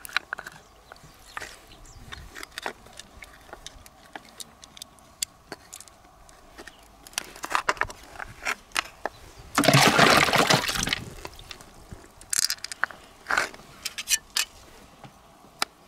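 Freshwater pearl mussels being opened by hand: wet squelching of the flesh being pulled from the shell, with scattered small clicks of shell and knife. About two-thirds of the way through, a louder wet, noisy stretch of just over a second.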